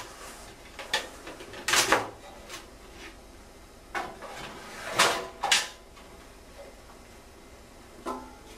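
A hammer set down into a metal paint can holding nails, then the can's plastic holder arm knocked into the hollow rung of an aluminium ladder. A few separate clunks and clatters, the loudest about five seconds in.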